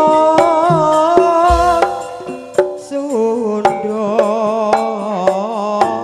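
Live Javanese campursari music: a singer holds long, wavering notes over struck percussion with sharp hand-drum strokes. A second long phrase begins, lower, about three seconds in.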